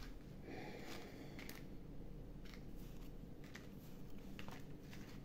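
Neapolitan playing cards being laid out on a cloth-covered table: a short rustle of card sliding on card about half a second in, then several light taps and clicks as cards are set down.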